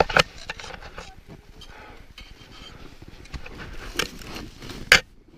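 Sharp knocks and scraping of climbing gear against the snow and ice wall of a crevasse: two quick knocks at the start, another about four seconds in and the loudest just before the end, with a low rustle between.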